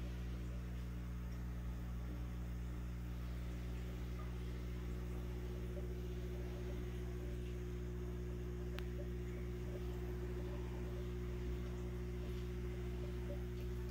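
Steady low hum of an aquarium pump, one of its tones growing stronger about six seconds in, with a single faint tick about nine seconds in.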